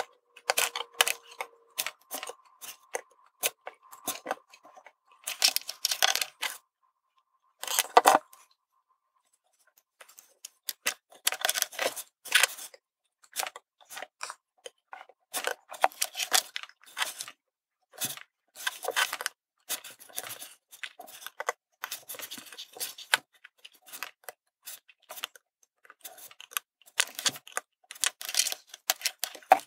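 Small metal-tool handling noises from hand soldering of surface-mount parts: bursts of light clicking and scraping as tweezers and the soldering iron tip work on a printed circuit board on a wooden tabletop. The handling falls silent for a second or two about a third of the way in.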